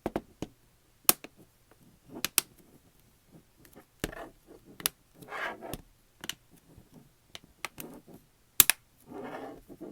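Plastic tablet case being pressed and clipped back onto the tablet: a series of sharp plastic clicks and snaps, with short stretches of scraping in between.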